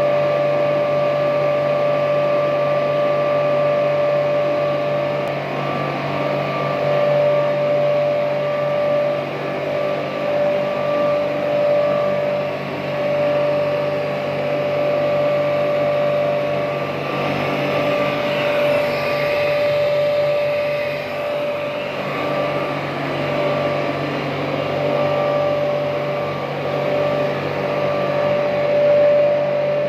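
Wood sawdust making machine running: a steady machine drone with a constant high whine, growing rougher and noisier for a few seconds around the middle.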